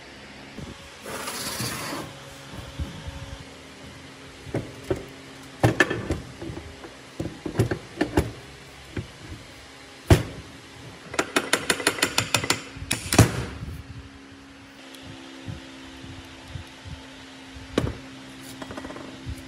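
Rusty steel parts of a planer's feed-roller assembly being handled and fitted on a metal workbench: scattered metallic clinks and clacks, a short hiss about a second in, and a quick run of about a dozen clicks a little past the middle. A steady fan hum runs underneath.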